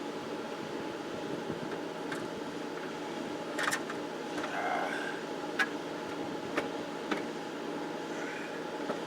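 A steady mechanical hum, with a few sharp clicks and knocks from tools and parts being handled while a car's transmission is put back in.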